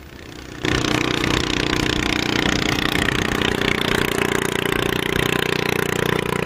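Long-tail boat's engine running flat out as the boat races past throwing a plume of spray: a loud, steady engine drone over a hiss. It starts suddenly about half a second in and cuts off abruptly at the end.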